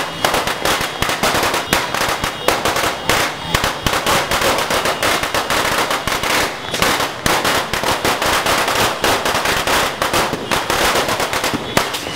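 Fireworks going off in a rapid, unbroken barrage of sharp bangs and crackles, many reports a second.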